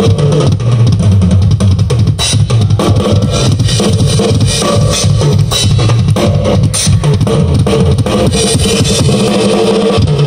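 Rock band playing live and loud: drum kit with steady drum hits and cymbals, over bass guitar and guitar, heavy in the low end.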